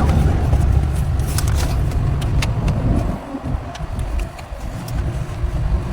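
A car engine running with a low rumble that weakens for a couple of seconds a little past halfway, with scattered light clicks.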